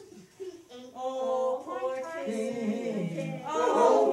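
A group of voices singing: one voice starts about a second in, others join, and the singing grows louder near the end.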